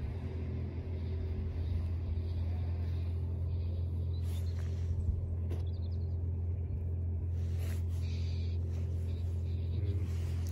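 A steady low rumble with a hum in it, like a motor or engine running, with a few faint ticks around the middle.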